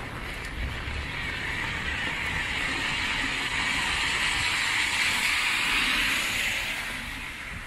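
A car passing on a rain-soaked street: the hiss of its tyres on the wet road swells, is loudest around five to six seconds in, then fades near the end. Steady rain on an umbrella goes on underneath.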